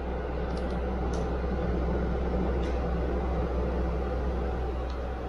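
Steady low mechanical hum of machinery running, with a few faint ticks about one and three seconds in.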